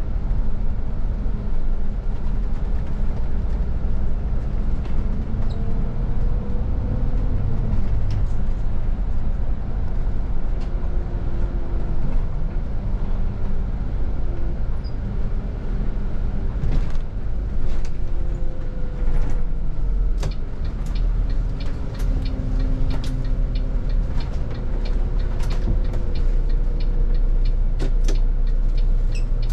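City bus driving, heard from the driver's cab: steady low engine and road rumble, with the engine note rising and falling as the bus slows and pulls through a roundabout. A run of sharp clicks and rattles comes in the second half.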